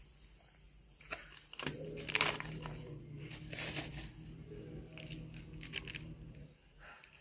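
Eating sounds: crinkling, rustling and crunching in irregular bursts with small clicks, over a low steady hum that drops out near the end.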